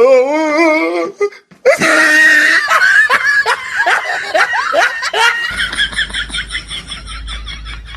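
Loud laughter: a long run of short ha-ha bursts, each sliding down in pitch, growing fainter toward the end. A low hum comes in about two-thirds of the way through.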